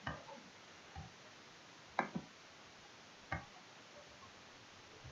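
Five short, sharp computer mouse clicks, roughly a second apart with two close together about two seconds in, over a faint steady hiss.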